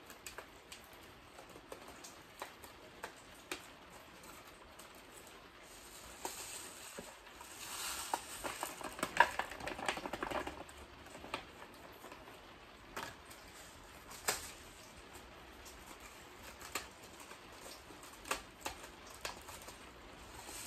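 Scattered light clicks and taps of seeding tools being handled, with a rustling patter from about eight to ten seconds in as onion seeds are poured from a seed packet into a plastic case.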